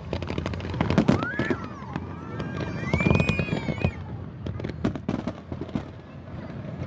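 New Year fireworks going off: a run of sharp bangs and crackles throughout, with a few rising-and-falling pitched sounds in the middle.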